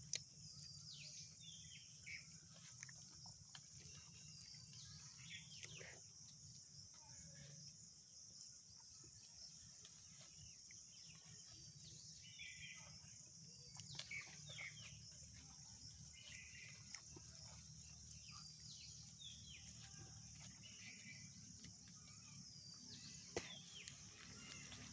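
Faint outdoor ambience: a steady high-pitched insect drone with scattered short bird chirps and a few faint clicks.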